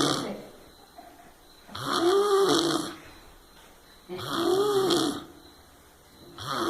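Snoring in sleep: one snore about every two and a half seconds, each about a second long, a noisy breath carrying a tone that rises and then falls, with quiet gaps between.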